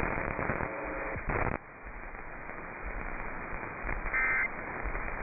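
Radio static hiss on an EAS alert broadcast, with a short buzzy burst of data tones about four seconds in, typical of the end-of-message signal that closes the alert.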